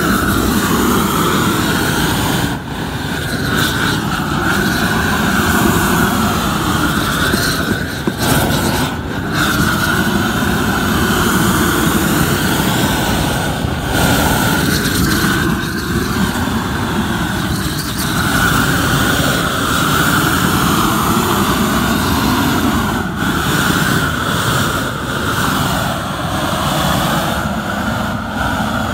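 Propane roofing torch burning steadily, its flame heating and melting the back of a modified bitumen roll as it is rolled out. A loud, even rushing noise with only slight dips.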